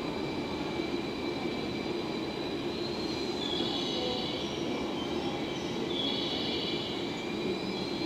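JNR 113 series electric train rolling slowly forward with a steady rumble, and a high wheel squeal that comes in twice, about three and six seconds in.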